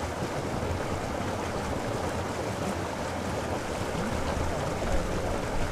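Steady rushing and splashing of water pouring from a pipe outlet into a concrete farm water tank, running over hands cupped under the stream.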